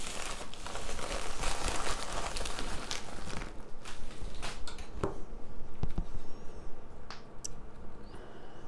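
Packaging rustling and crinkling as a mailed package is handled and opened, denser for the first few seconds, then giving way to a few light clicks and scrapes.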